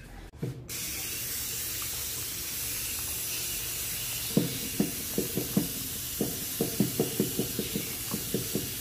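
Water running from a push-button faucet into a stainless steel sink, coming on suddenly about a second in as a steady hiss. From about halfway, irregular short splashes as a child's hands rub under the stream.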